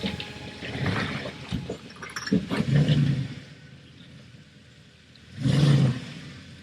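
Jeep's engine revving in two short bursts about three seconds apart as it crawls over rocks, with a few knocks before the first burst.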